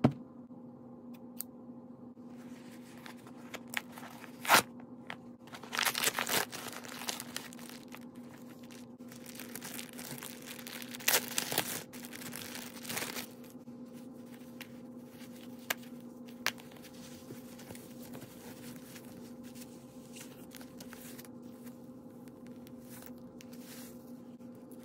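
Packaging being torn open and handled by hand: the crinkling and tearing of a paper mailer and plastic bags in irregular bursts, loudest around six seconds in and again around eleven to thirteen seconds, with a sharp snap at about four and a half seconds. A steady low hum runs underneath.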